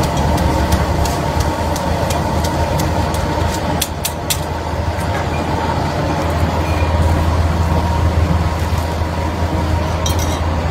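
Steady low rumble of a busy noodle-stall kitchen, with light metallic clinks of ladles, strainer and tongs against steel pots, mostly in the first half.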